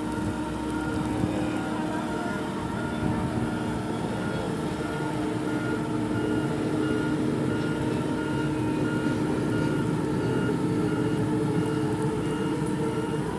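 A 300-ton travelift running steadily under load as it lowers a boat, its engine giving a constant drone, with a warning beeper sounding at a steady repeating rate.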